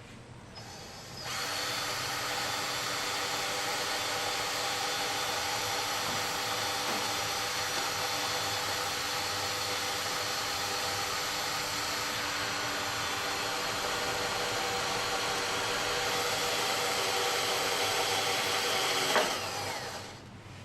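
Electric drill with a 6 mm bit running steadily as it drills holes through sheet metal. It starts about a second in, gives a brief louder peak near the end, and then the motor winds down.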